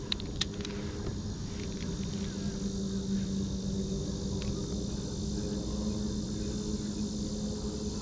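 Insects buzzing steadily: a low, even hum with a high, hissing insect chorus above it. Two sharp clicks come just after the start.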